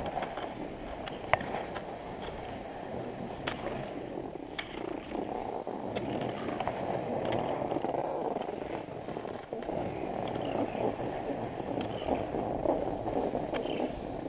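Skis sliding over groomed snow on a downhill run: a steady scraping hiss, with a few short sharp clicks.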